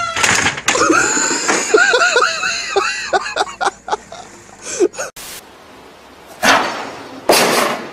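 A crash and splash as people and a collapsing wooden table bridge drop into a swimming pool, followed by a few seconds of people shrieking and laughing. Later come two short bursts of noise.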